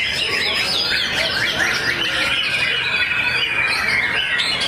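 White-rumped shamas (murai batu) singing at a songbird contest: a dense run of overlapping, fast-changing whistled phrases, with a longer stretch of rapidly repeated notes about two seconds in.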